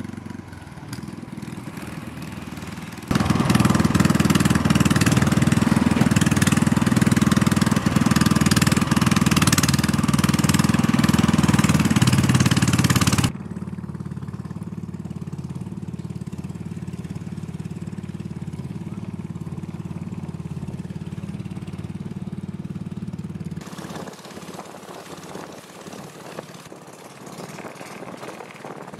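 Long-tail boat engine running steadily on the water. It gets much louder about three seconds in, drops back about halfway through, and quietens again near the end.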